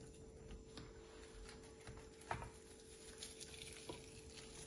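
Near silence: a few faint soft taps, the clearest about halfway, as sliced onion is dropped by hand onto fish fillets in a glass baking dish, over a faint steady hum.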